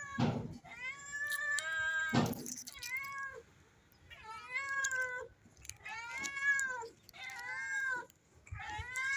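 Hungry adult cat begging for food, meowing insistently about seven times in a row, each meow rising and then falling in pitch. There are two dull thumps, one at the start and one about two seconds in.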